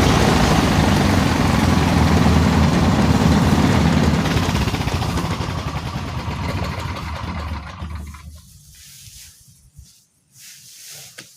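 Engine-driven rice thresher running loudly, then fading over several seconds and stopping about eight and a half seconds in.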